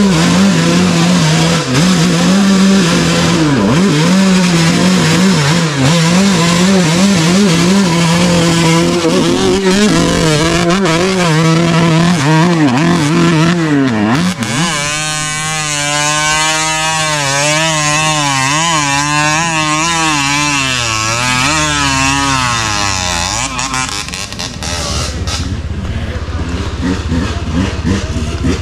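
Dirt bike engines revving hard under load on a steep hill climb. The pitch holds fairly steady at first, then swings up and down in quick throttle blips for several seconds from about halfway, and settles to a lower steady drone near the end.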